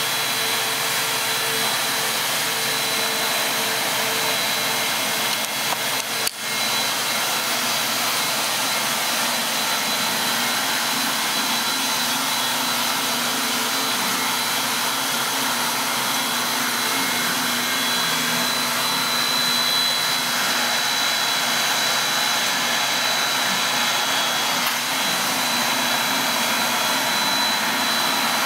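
Two-stage plastic recycling extruder line running: a steady machine hiss with a thin high whine held throughout and a lower hum beneath, briefly dipping about six seconds in.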